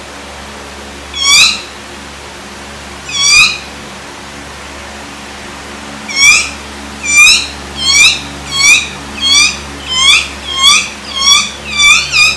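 A rubber squeaky toy squeezed over and over, each squeak short, high and rising in pitch. Two squeaks come about two seconds apart, then after a pause a steady run of about one and a half a second that quickens near the end.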